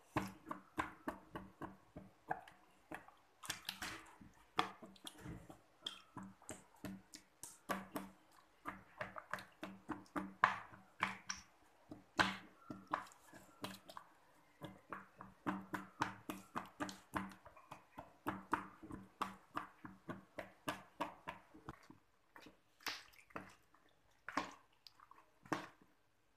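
Metal spoon clinking against a plastic bowl and squelching through raw chicken pieces in wet batter marinade: quick, irregular clicks, a few a second.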